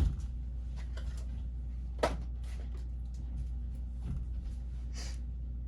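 Trading cards and their packaging being handled: a knock at the start and another about two seconds in, with scattered small clicks and a short rustle, over a steady low hum.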